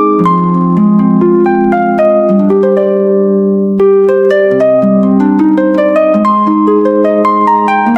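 Slow, calm instrumental music on a plucked string instrument: a melody of ringing notes over held low notes, with a brief falling-away of the high notes around the middle before the melody picks up again.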